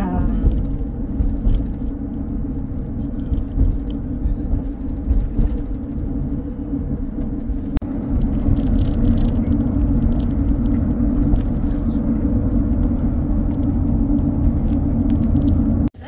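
Steady low rumble of road and engine noise inside a moving car's cabin. The sound dips for an instant about eight seconds in and runs slightly louder after.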